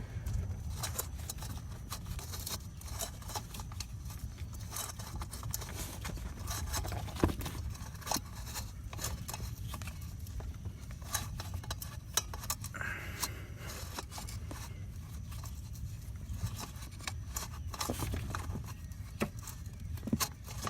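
Scattered small scrapes and clicks of hands gripping and turning a new spin-on oil filter, tightening it three-quarters of a turn past hand-tight, over a low steady hum.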